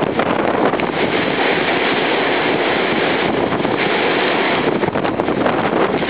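Strong wind buffeting the microphone: a loud, steady rushing noise.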